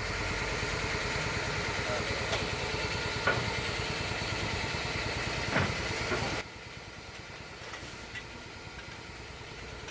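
An engine or machine running steadily, with a few light knocks, cutting off abruptly to a quieter background about six and a half seconds in.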